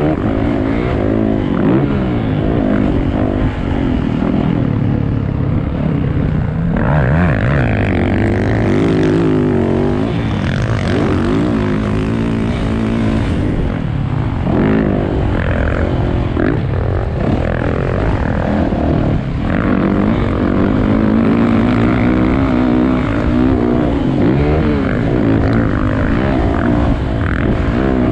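A vehicle engine running hard and revving up and down continuously, its pitch rising and falling every second or two as the throttle opens and closes.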